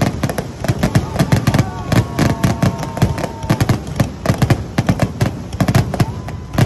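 Fireworks display firing a rapid barrage: sharp bangs and crackles several times a second, with long whistles sliding over them.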